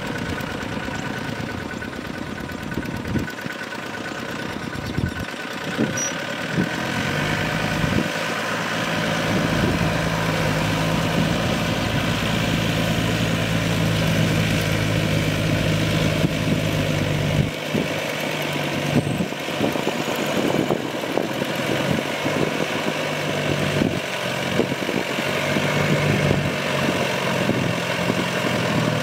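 Yanmar YM357A tractor's diesel engine running under load as it pulls a rotary tiller through a flooded rice paddy: a steady drone that changes pitch a few times, with occasional short knocks.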